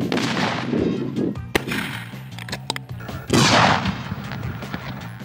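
High-explosive charges detonating: several sharp blasts in turn, each followed by a noisy tail, the loudest a little past halfway.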